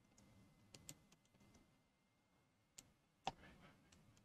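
Near silence broken by a few faint, sharp clicks from computer input devices; the loudest comes a little past three seconds in.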